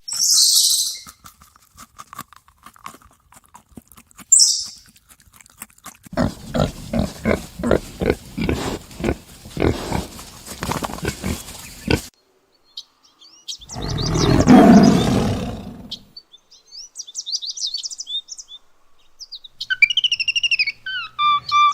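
A string of different animal sounds one after another: two short hisses, a run of rhythmic pulses, one loud long call, then birds chirping near the end.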